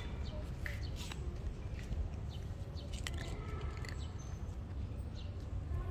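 Young tabby cat crunching dry kibble, with scattered crisp crunches over a steady low rumble.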